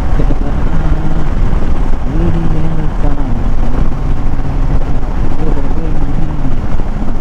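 KTM 390 Adventure's single-cylinder engine running steadily at highway cruising speed, its note wavering slightly, under a heavy low rumble of wind on the microphone.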